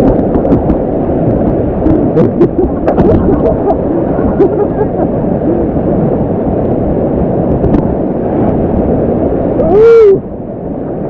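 Whitewater rushing in a rapid, heard loudly from a kayak close to the water, with a few sharp splashes about two to three seconds in. Near the end comes one brief loud rising-and-falling pitched sound, and then the rushing turns quieter.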